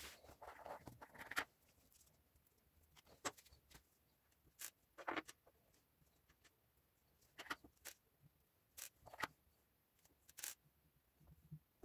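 Faint scattered clicks and taps of small metal breast-drill parts being handled, with a short rustle about a second in.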